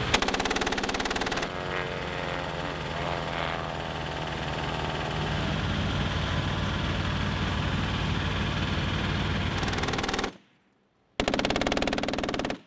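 Avenger's .50-calibre FN M3P machine gun firing rapid bursts: one of about a second and a half at the start, then two more near the end, each cutting off suddenly. Between the bursts a vehicle engine idles steadily.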